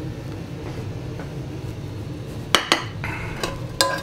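Metal cooking utensils and a steel frying pan clinking: about four sharp metallic clinks with short ringing in the last second and a half, over a steady low hum.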